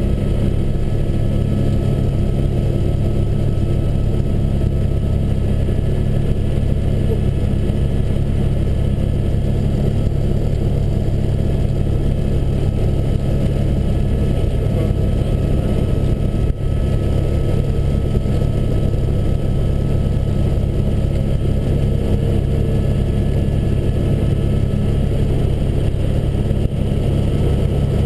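Helicopter cabin noise as it lifts off and climbs: a steady engine and rotor drone with several constant high tones over it.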